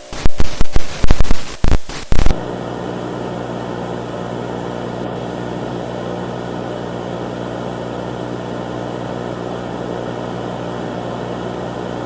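A spoken alert is cut off by a rapid run of very loud, harsh bursts lasting about two seconds. They break off abruptly into a steady electrical buzz with hiss that does not change.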